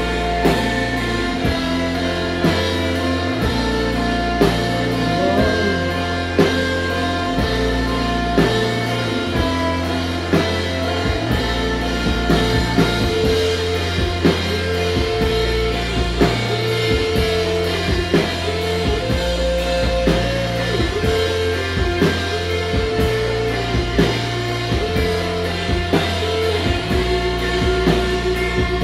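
Rock band playing live, with electric guitars bending notes over bass guitar and a steady drum kit beat.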